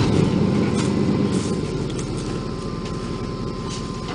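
A car engine just fired up and running at idle, with a dense low exhaust rumble that settles a little quieter after the first second or two.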